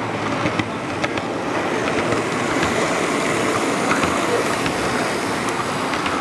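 Model train running past close by on the layout track: a steady rolling rumble of wheels and motors that grows a little louder over the first two or three seconds as it arrives. There are a few sharp light clicks in the first second.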